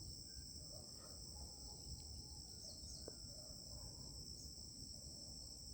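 Steady high-pitched trilling of an insect chorus, like crickets, running unbroken over faint low background noise.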